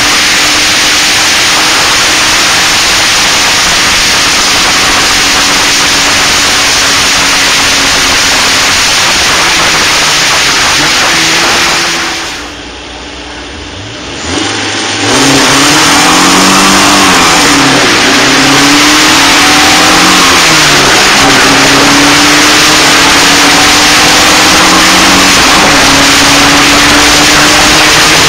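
Onboard sound of a Locost race car at speed: its engine running hard under a loud rushing noise. The sound drops away for a few seconds near the middle at an edit, then the engine note rises and falls repeatedly with revs and gear changes.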